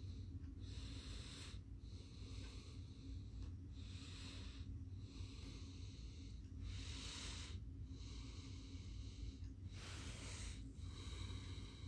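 Faint, slow, even breathing close by, each breath a soft airy swell about every one and a half seconds, two of them louder past the middle, over a low steady hum.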